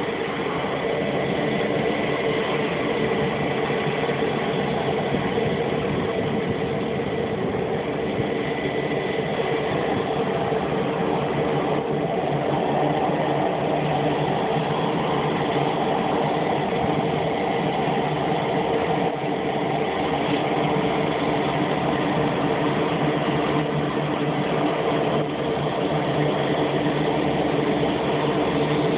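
T-34C Turbo Mentor's PT6A turboprop engine running steadily at idle, with the propeller turning. A thin high whine fades out about ten seconds in.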